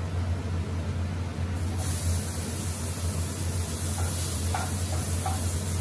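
Capsicum and corn kernels sizzling in butter in a hot frying pan, the sizzle jumping up about two seconds in as they are tipped in, with a few light taps of a spatula against the plate near the end.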